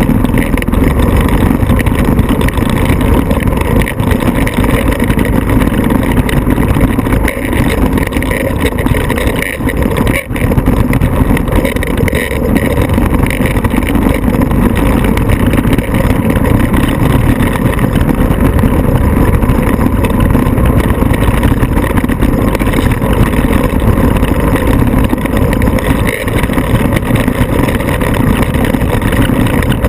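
Vehicle engine running loud and steady, with a brief dip about ten seconds in.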